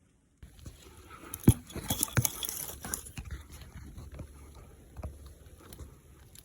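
Close rustling and sharp clicks, like clothing or gear being handled right against the microphone. It starts suddenly, is loudest with one sharp click about a second and a half in and a burst of clicks a little later, then settles to softer rustling.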